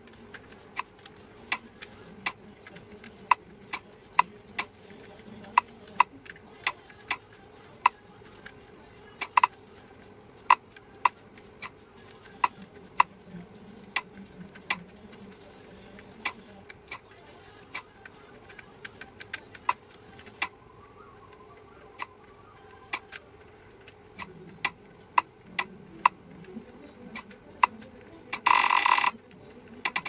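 Sharp plastic clicks from a Redragon K596 mechanical keyboard, irregular, about one to two a second, with a short rasping scrape near the end.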